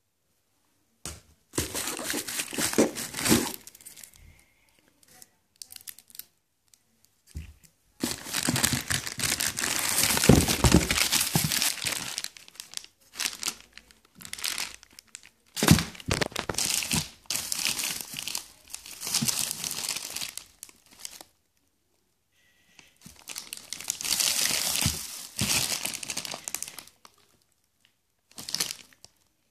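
Plastic wrapping crinkling and rustling in bursts, with short pauses, as bagged fireworks are handled and lifted out of a cardboard box.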